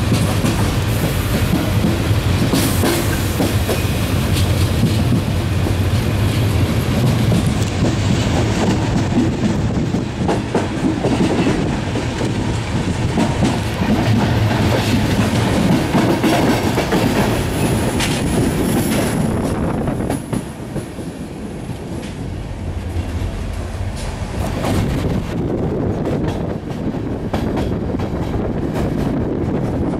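Train running along the track, heard from on board: a steady rumble with wheels clicking over rail joints and points. A faint high wheel squeal comes a little past halfway, and the running gets somewhat quieter after that.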